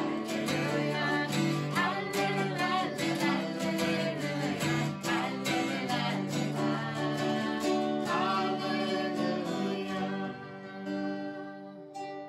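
Two acoustic guitars strummed in rhythm with a woman singing. The song winds down about ten seconds in, and a last strummed chord rings out near the end.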